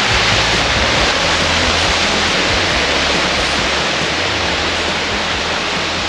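Steady rush of creek water pouring over a stone weir and down a rocky cascade. The creek is in full flow after winter rain.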